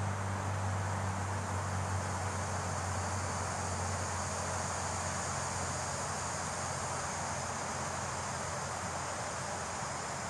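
Steady woodland background: an even hiss of insects and wind in the leaves, with a low distant drone that fades away over the first half.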